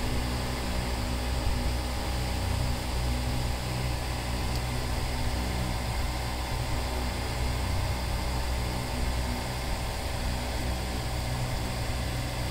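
Steady low mechanical hum with an even hiss over it.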